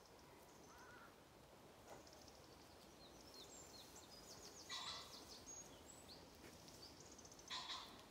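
Near silence: faint wind-like hiss with small birds chirping high and thin, and two short, louder calls about five and seven and a half seconds in.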